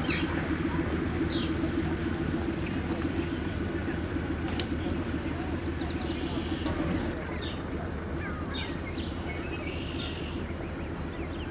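Canada goose goslings peeping, short high chirps every second or two, some in quick little clusters, over a steady low background hum.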